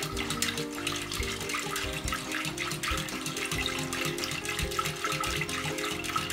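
Wire whisk beating lye solution into melted coconut oil in a stainless steel pot: liquid sloshing with quick, irregular clicks of the wires against the pot. This is the mixing stage of soapmaking, bringing the mixture to trace. Background music with held notes plays over it.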